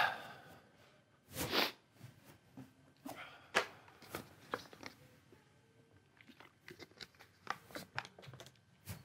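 Quiet pause in a church, filled with scattered small knocks, clicks and rustles of people moving about, with a short louder rustle about one and a half seconds in.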